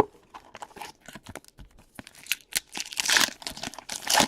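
Trading-card pack wrappers being torn open and crinkled: irregular crackling and ripping, loudest about three seconds in and again near the end.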